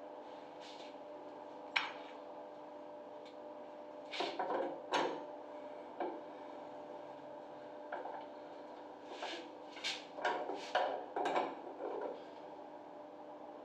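Metal clicks, knocks and scraping from hand and tool work on a brass concealed shower valve body, coming in short clusters about four seconds in and again from about nine to twelve seconds in. A steady hum runs underneath.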